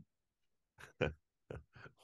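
A man chuckling softly: a few short, breathy laughs, starting about a second in.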